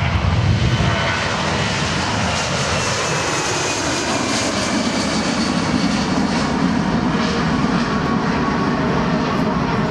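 Boeing C-17 Globemaster III's four turbofan engines at takeoff thrust as the aircraft lifts off and climbs away: a loud, steady jet roar. A tone in it falls in pitch a few seconds in as the aircraft passes.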